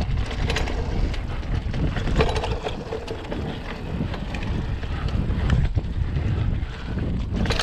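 Hardtail mountain bike riding fast down a dirt trail: steady rumble of the tyres and wind buffeting the microphone, with frequent short rattles and knocks from the bike over small bumps.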